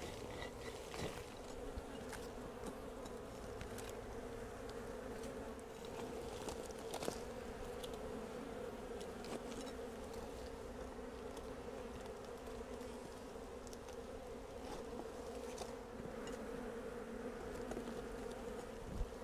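Steady buzzing hum of a disturbed honeybee colony swarming around its opened nest in a hollow pine trunk, with scattered faint clicks and scrapes of a hand tool working in the cavity.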